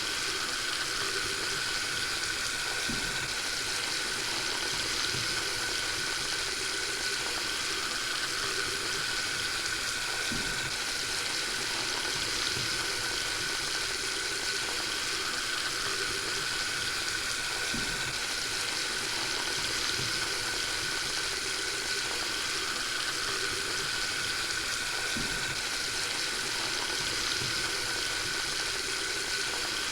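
Water running steadily from a faucet, an even, unbroken rush of water. A faint low sweep recurs about every seven and a half seconds.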